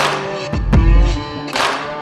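Background music with a steady beat over sustained chords: a bright crash at the start and about a second and a half in, with a deep low drum hit between them.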